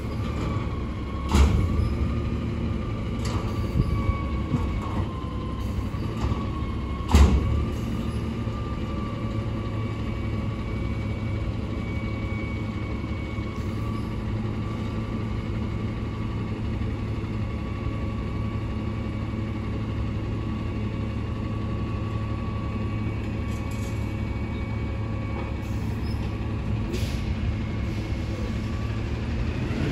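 Garbage truck running steadily with a constant whine over the engine. Two sharp bangs come about a second and a half in and about seven seconds in, with a few lighter knocks between them.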